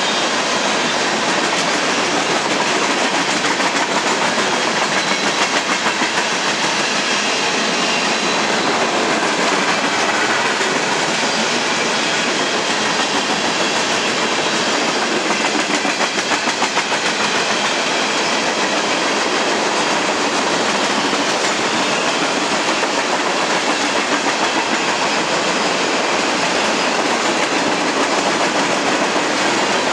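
Open-top coal hoppers and covered hopper cars of a CSX freight train rolling past: steady, loud rolling noise of steel wheels on rail.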